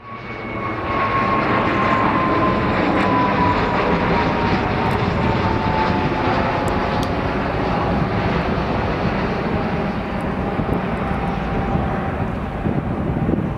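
Gulfstream IV business jet's Rolls-Royce Tay turbofans on landing approach: a steady jet rumble that swells in over the first second, with an engine whine that slowly falls in pitch.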